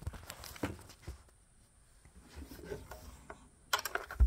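Handling noise as a phone is moved against a shirt and over a PTR 91 rifle: faint rubbing and scattered light clicks, with a quick run of sharper clicks near the end.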